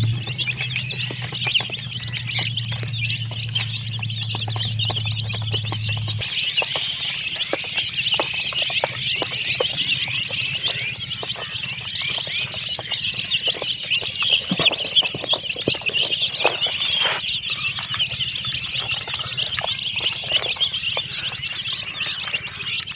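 A flock of baby chicks peeping continuously, many high chirps overlapping. A low steady hum runs underneath and stops about six seconds in.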